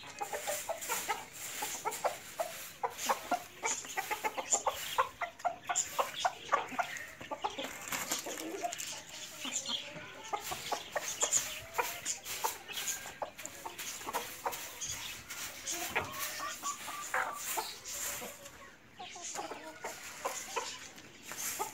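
A flock of domestic chickens, hens and roosters, clucking and calling, with many short calls overlapping and a brief lull near the end.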